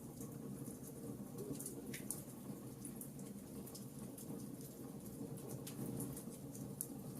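Wood fire burning in a fireplace, crackling with frequent small sharp pops over a steady low rumble of the flames.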